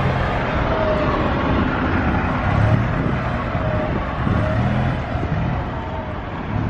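Street traffic: motor vehicles running and passing with a steady engine hum.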